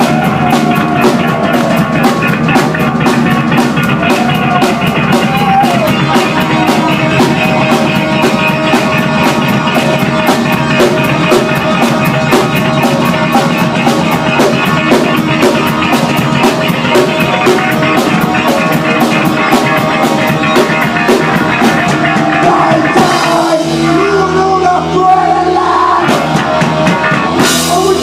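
Live punk rock band playing loud: electric guitars, bass guitar and a drum kit keeping a steady beat. About 23 seconds in the drums stop and a held chord rings for a few seconds, then a cymbal crash brings the full band back in.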